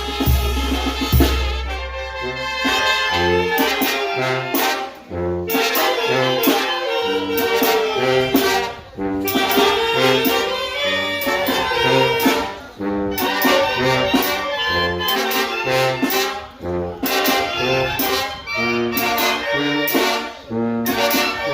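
Mexican village brass band (banda de viento) playing: trumpets, saxophones and trombones carry the melody over a bass line of separate low notes. Heavy bass drum hits in the first couple of seconds, with short breaks between phrases about every four seconds.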